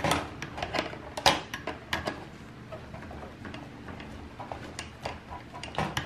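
Screwdriver clicking and scraping against metal while loosening a mounting screw on a dishwasher's wash motor. A few sharp clicks come in the first second or so, then quieter handling, and another click near the end.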